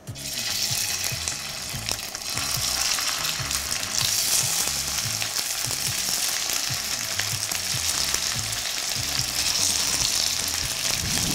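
Rice and leek patties sizzling in hot oil in a frying pan as they are laid in one by one. The sizzle starts suddenly as the first patty goes in and grows a little louder as more are added.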